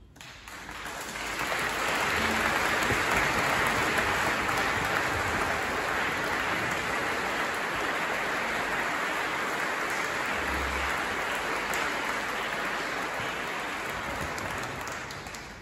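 Audience applauding. The clapping swells over the first couple of seconds, holds steady, and dies away near the end.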